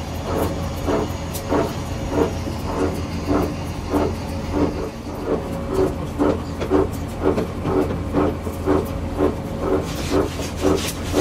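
Two-roll rubber mixing mill running as the rubber compound is worked between its rolls: a steady low hum with a regular pulsing about two to three times a second.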